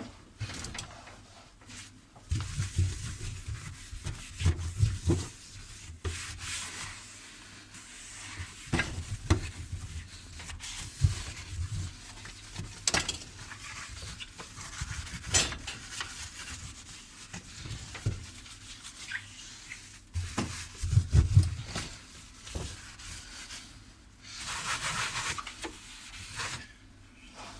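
Scrubbing and wiping inside a dishwasher tub, with irregular rubbing strokes, dull thuds and scattered clicks and knocks against the machine's inner walls. A steadier hiss lasts about two seconds near the end.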